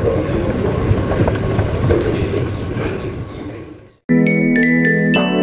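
Metro station noise, a continuous rumble and hiss, fades out over about four seconds. Background music of struck, chiming notes then starts abruptly.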